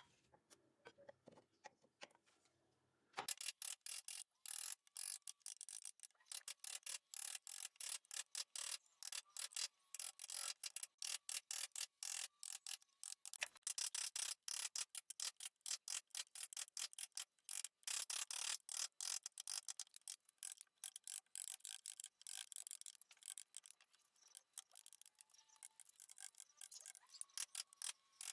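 Rapid, irregular sharp clicking, about four to six clicks a second, starting about three seconds in.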